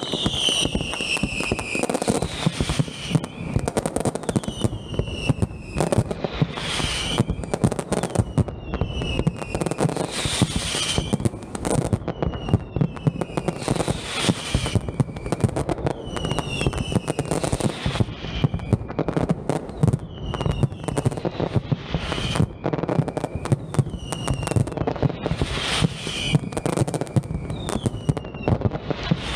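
Aerial fireworks display firing continuously: dense bangs and crackling, with many short whistles that glide down in pitch every second or two.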